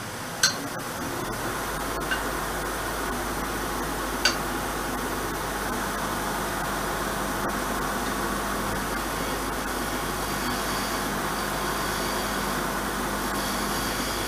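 Wood lathe switched on about a second in and running steadily while a small wooden pin is turned with a hand tool. A few sharp clicks come in the first few seconds.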